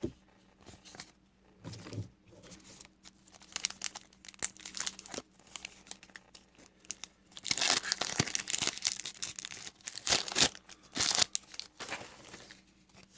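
A trading card pack's wrapper being torn and crinkled, with cards being handled. The crinkling is loudest in two stretches in the second half.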